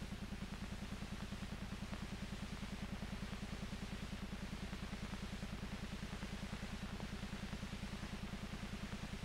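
Railroad motor car's small engine chugging steadily in quick, even beats, about seven a second.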